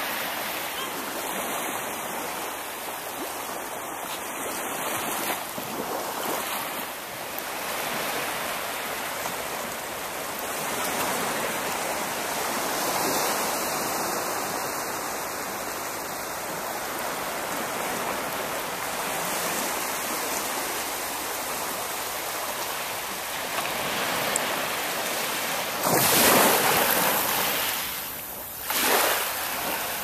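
Sea surf washing on a sandy beach, a steady hiss of waves, with two louder rushes near the end.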